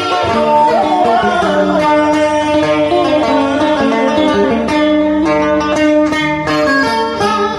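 Vietnamese cải lương music: a plucked-string accompaniment led by a guitar, playing a melody.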